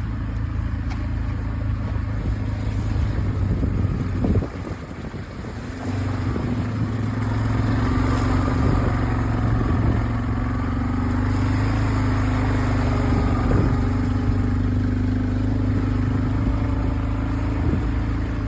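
Four-wheeler (ATV) engine running steadily, its sound dropping briefly about four seconds in and then picking up again.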